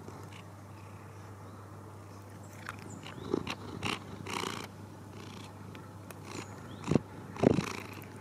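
Domestic cat purring right against the microphone, in a few loud rough bursts about three to four seconds in and again near the end.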